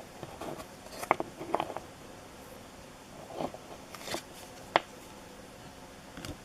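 Baseball cards and their pack wrappers being handled: scattered light clicks, crinkles and rustles, with a sharp snap a little under five seconds in.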